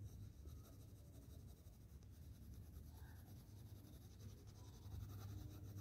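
Faint scratching of a Doms coloured pencil shading very lightly on drawing paper, over a low steady hum.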